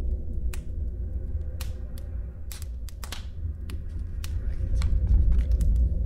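Crumpled paper being handled, giving sparse, irregular crinkles and clicks over a low steady drone that swells near the end.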